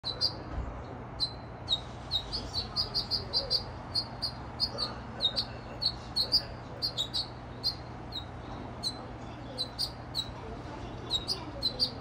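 Small songbirds chirping: short, sharp chirps, several a second, irregularly spaced.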